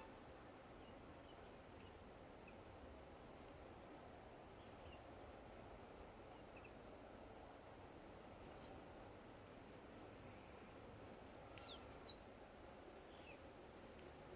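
Small songbirds calling faintly in a garden: scattered short high chirps, with a few quick downward whistles about halfway through and again near the end, over a faint steady background hum.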